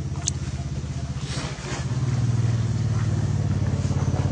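A motor vehicle's engine running steadily with an even, rapid pulse, getting louder about a second and a half in as it comes closer.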